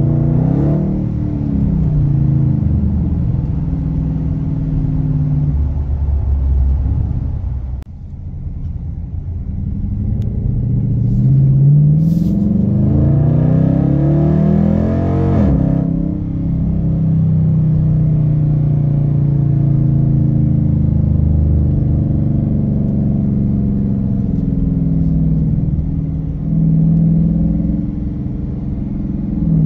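2022 Dodge Challenger R/T's HEMI V8 running through Dynomax Race Bullet resonators in place of the stock mufflers, with the factory resonators deleted, heard from inside the cabin. It cruises at a steady note, then about halfway through pulls with a rising pitch for several seconds before dropping back to a steady cruise.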